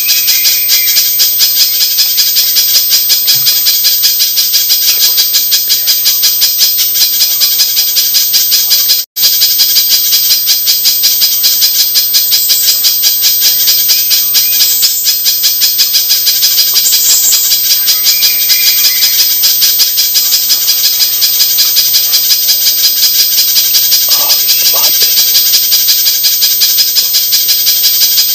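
Spiderhunter (pijantung) lure-call recording: a fast, unbroken run of sharp, high chips, looped, with a brief break about nine seconds in.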